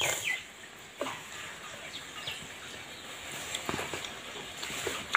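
A few light clicks of fingers tapping and scraping food on a stainless steel plate, the sharpest near the end, over a quiet background with a few faint bird chirps.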